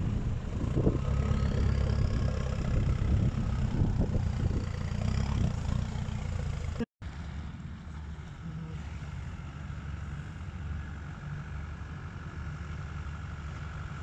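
Land Rover Defender 110's 200Tdi four-cylinder turbodiesel engine running at low revs as it crawls over mud, loud and close at first. After a brief break about halfway, the engine is heard more faintly.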